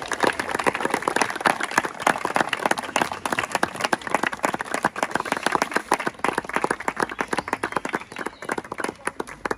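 Crowd applauding: many people clapping at once in a dense, irregular patter, thinning out near the end.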